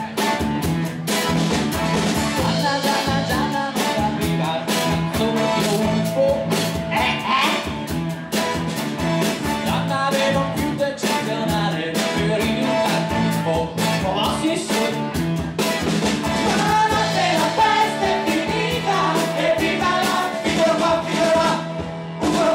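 Live rock band playing: drum kit, electric guitar and bass guitar with a steady beat, and a male lead singer at the microphone.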